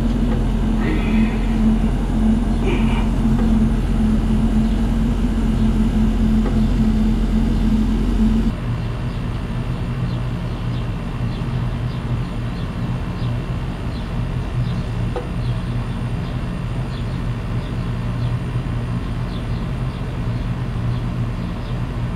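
LG 18,000 BTU ceiling-cassette air conditioner's outdoor unit running with its newly replaced compressor, a steady mechanical hum while refrigerant is charged in on the low side. The pitch of the hum changes abruptly about eight seconds in and stays steady after.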